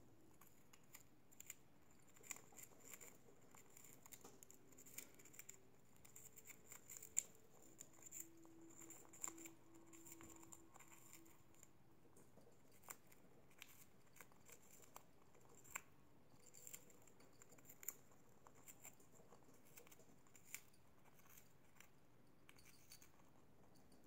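Budgerigars nibbling and chewing a piece of balsa wood: faint, scattered small clicks and crunches of beaks on the soft wood, with one sharper click about seven seconds in.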